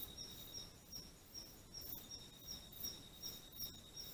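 Night insects calling, faint: a steady high trill with a short high chirp repeating about three times a second, typical of crickets.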